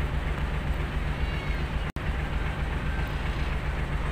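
Diesel-electric locomotive approaching slowly, its engine a steady low rumble. A few faint high chirps sound above it, and the sound cuts out for an instant about two seconds in.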